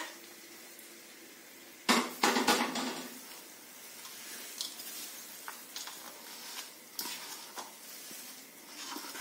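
A short clatter of metal scraping and knocking about two seconds in as the tempering is emptied from an aluminium kadai onto rice in a stainless steel bowl, then light scattered clinks and scrapes of a steel spoon in the bowl as the tempering is mixed into the rice.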